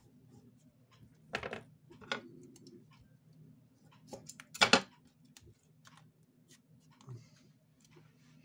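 Fingers handling a strip of double-sided tape: small clicks, scratches and taps as the backing paper is picked at and peeled. Three sharper short sounds stand out, about one and a half, two and four and a half seconds in, the last the loudest, over a faint steady low hum.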